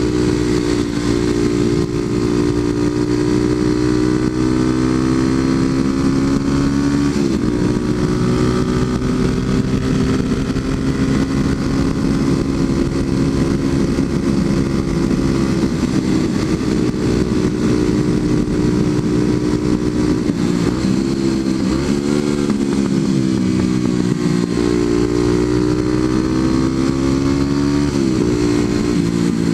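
Kawasaki KLX250SF's single-cylinder four-stroke engine breathing through a Muzzy aftermarket exhaust, running hard at road speed. Its pitch falls and rises a few times as the throttle is eased and reopened, most markedly about 21 to 24 seconds in.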